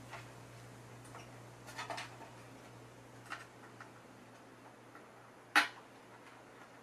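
Scattered light metallic clicks and taps of screws and a tool against the IMSAI 8080's sheet-metal front panel as its screws are worked into the captive nuts, with one sharp, much louder click about five and a half seconds in. A faint steady low hum runs underneath.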